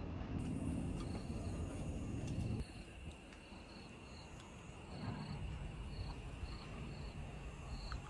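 Insects chirping: short chirps repeat over a steady high insect drone. A low rumble underneath cuts off abruptly about two and a half seconds in.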